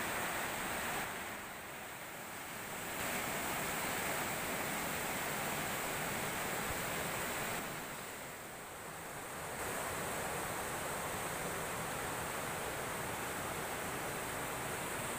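Fast river water rushing over a concrete weir, a steady roar of whitewater that softens briefly twice.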